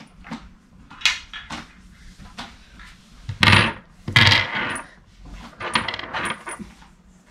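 Metal crib-frame bars clanking and clinking against each other as they are handled, with two loud clanks about midway and a cluster of lighter clinks after them.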